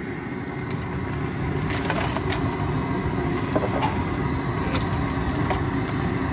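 A steady low rush from the crawfish cooker's gas burner, with scattered crackling clatters from about two seconds in, typical of live crawfish shells tumbling into the cooker.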